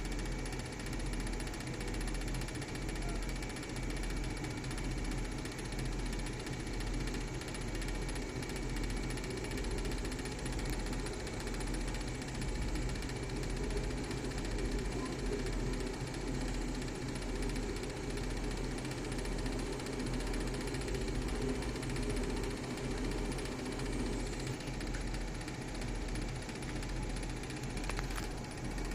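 Small homemade lathe running at a steady speed, its motor giving a constant hum with a low throb, the work turning against a centering point made from car valves.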